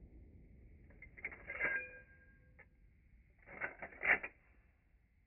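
Lever action of a Henry X .45-70 rifle being worked: two short bursts of metallic clicking and clacking with a brief ring, the first about a second in and the second near the four-second mark.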